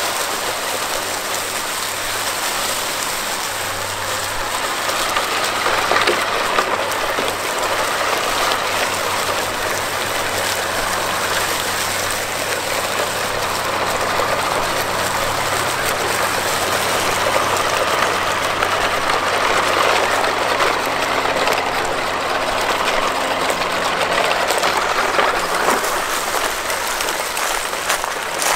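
Three RC trucks' tyres rolling through a thick layer of dry fallen leaves: a steady crackling rustle that runs on without a break.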